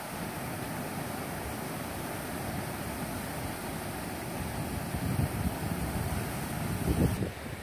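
Wind buffeting a phone's microphone: a steady rushing hiss with heavier low gusts from about five seconds in, strongest near the end.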